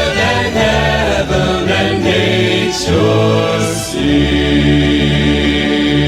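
Group vocals singing in choir-like harmony with backing music, closing on a long held chord from about two-thirds of the way in.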